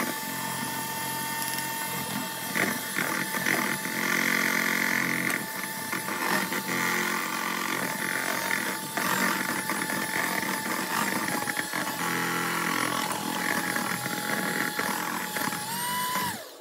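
Electric hand mixer running steadily, its beaters whisking cake batter in a stainless steel bowl, with irregular clicks. The motor's pitch rises briefly just before it cuts off near the end.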